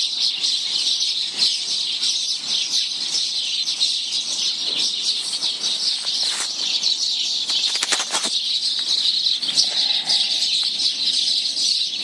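Many small birds chirping steadily in the background, with scattered rustling strokes and a short cluster of sharper ones about eight seconds in.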